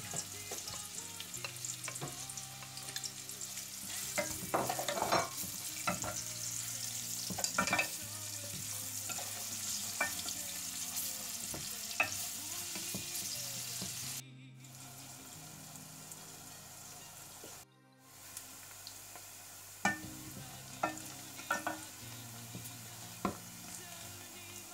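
Sliced onions sizzling as they fry in oil in a metal saucepan, with a wooden spoon clicking and scraping against the pot as they are stirred. The sizzle drops abruptly about halfway through and stays quieter, with a few sharper spoon taps near the end.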